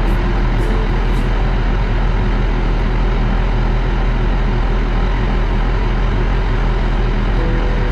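Heavy diesel engine running with a steady drone, the CAT 775F dump truck's engine supplying hoist oil pressure to charge the rear suspension.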